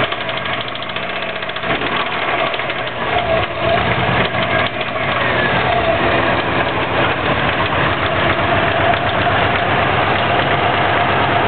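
2004 Subaru WRX turbocharged 2.0-litre flat-four running with a fast, regular heavy knock: the knock came on after donuts on pavement, and the owner suspects a rod knock.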